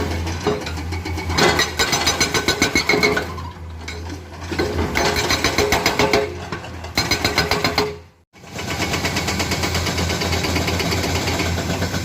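Komatsu hydraulic excavator at work: a diesel engine running under load with a fast, rhythmic clattering pulse. It drops out briefly about eight seconds in, and the engine then runs more steadily.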